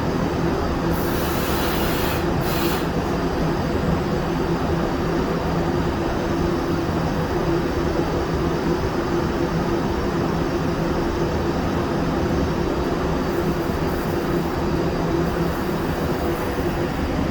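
Steady drone of shop machinery with a constant low hum. A short burst of hissing air comes about a second in.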